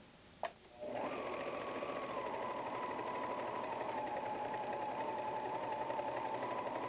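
Pfaff Hobbylock serger starting up about a second in, after a small click, then running at a steady speed as it stitches and trims a curved fabric edge, with an even high whine.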